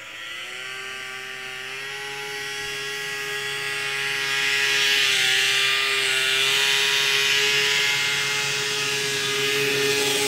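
Outro sound effect: a steady, machine-like whining drone that glides up slightly at the start, then holds its pitch while growing louder, with a rushing hiss swelling through the middle.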